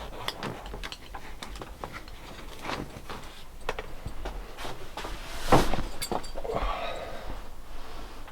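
Scattered clicks and knocks of gear being handled and moved, with one louder knock about five and a half seconds in.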